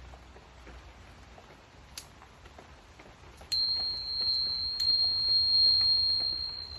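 Soft rain pattering, then about three and a half seconds in a tuning fork is struck and rings one steady, high, clear note that carries on to the end.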